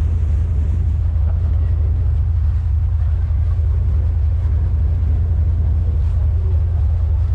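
Cruise ship lifeboat working as a tender, its engine running with a steady low drone as it motors through calm water.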